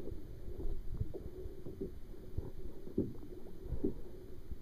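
Water lapping and sloshing against a kayak at the waterline, with irregular soft knocks against the hull. It sounds muffled and low, with little high sound.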